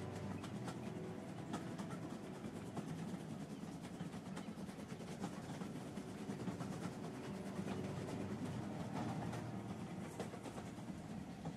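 Railway train running along the track: a steady rumble with frequent scattered clicks and knocks over it.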